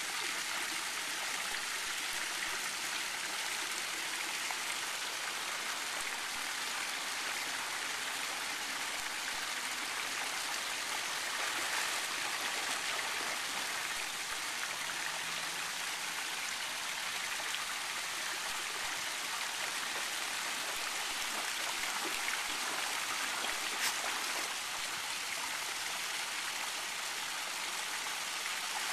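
Steady rushing splash of fountain jets falling into a shallow pool, with a few small splashes as a dog wades and paws in the water.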